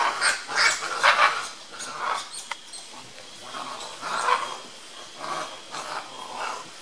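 Brown spider monkeys calling: a run of short calls, most of them in the first two or three seconds, with a few more about four seconds in.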